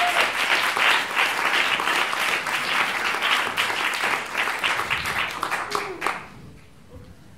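Theatre audience applauding, a dense crackle of many hands clapping that ends abruptly about six seconds in.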